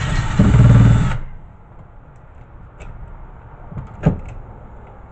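Cordless drill running for about a second as it backs a screw out of a VHS deck's metal chassis, then stopping. A single sharp click about four seconds in.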